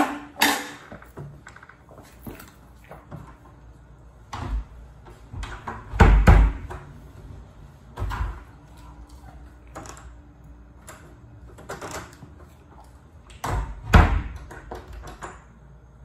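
A door and its lock hardware being worked, a run of knocks and clicks with two heavy thumps, about six and fourteen seconds in.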